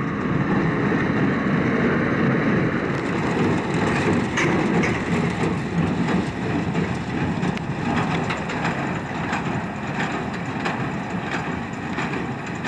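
Farm tractor running with hay-making machinery clattering and rattling behind it.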